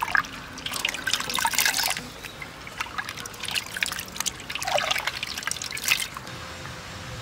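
A hand swishing and rubbing black grapes in water in a stainless-steel pot, the water splashing and trickling in uneven bursts as the grapes are washed.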